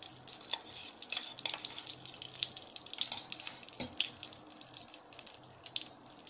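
Spoonful of ghee melting in a hot heavy-bottomed kadai: a fine sizzle with many small irregular crackles.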